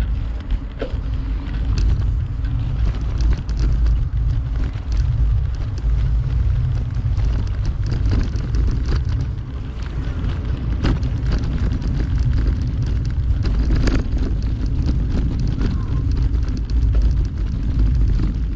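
Wind buffeting the microphone of a camera on a moving bicycle: a steady, loud low rumble with scattered clicks and rattles.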